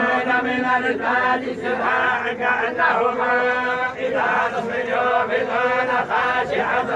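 Group of men reciting the Quran together in unison, a continuous chanted recitation with long held notes.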